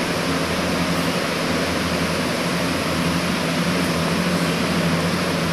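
Walk-in cold room's refrigeration unit running: a steady rush of air from the evaporator fans with a constant low hum.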